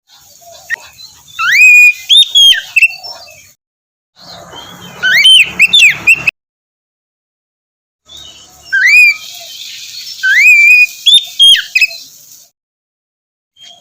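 Oriental magpie-robin (kacer) singing loud, clear whistled phrases of rising and falling notes. They come in three bursts, each cutting off suddenly into silence.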